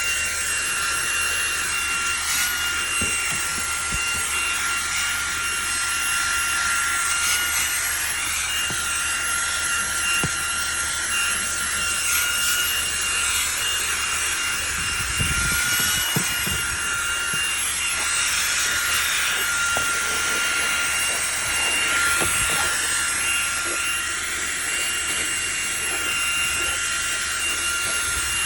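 Eufy H30 portable handheld vacuum running on its max setting: a steady high motor whine over a rush of airflow hiss. A few brief low knocks come about halfway through.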